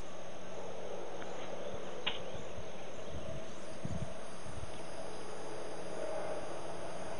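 Crickets chirping steadily at night in a high, evenly pulsing band over a steady hiss. There is a short click about two seconds in and a few low thumps around four seconds in.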